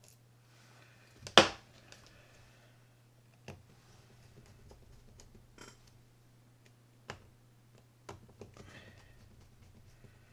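Small metal parts and a screwdriver clicking and tapping while a baitcasting reel's top plate is fitted and screwed on: five or so sharp, separate clicks, the loudest about a second and a half in, with faint scraping between them. A steady low hum runs underneath.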